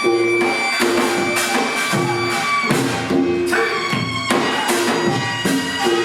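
Korean traditional folk music accompanying a deotbaegi mask dance: percussion strokes in a steady beat under a sustained melodic instrument.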